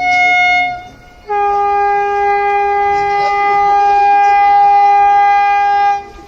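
Train horn sound effect: a short, higher-pitched blast, then after a brief gap a long, lower, steady blast held for about five seconds that cuts off.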